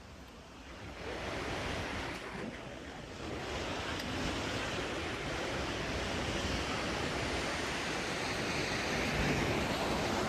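Small mountain stream rushing steadily, growing louder about a second in.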